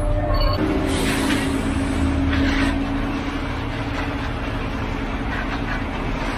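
Heavy diesel truck engine running steadily with a low hum, with faint scrapes of hand tools working through wet concrete.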